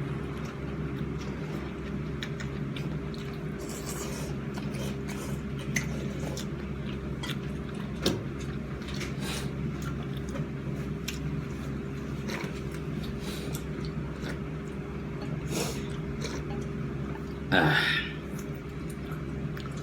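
Steady low hum of restaurant equipment with scattered light clicks and clinks of bowls and utensils being handled. A short voice is heard near the end.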